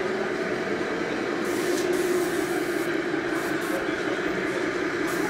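Airbrush blowing two short hissing bursts of air, while it is flushed with cleaner until no more paint comes out of the nozzle. A steady low drone runs underneath.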